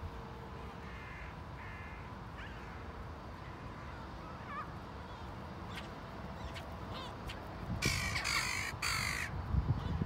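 Gulls and crows calling: several short calls through the first seven seconds, then a loud, harsh call in two parts about eight seconds in, over a steady low rumble.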